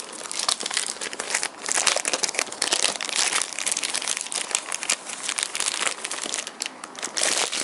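A clear plastic bag wrapped around a new external hard drive crinkling continuously as hands turn and work at it, in quick irregular crackles.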